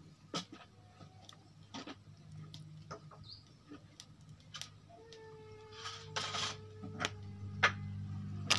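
Faint scattered clicks and light rustling of the plastic bag lining the pot, over a low steady hum; a louder plastic crinkle starts at the very end.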